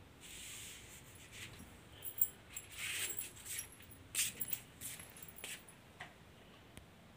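A run of short rustles and clicks with faint metallic jingling, loudest about two seconds in and again around four seconds in, dying away near the end.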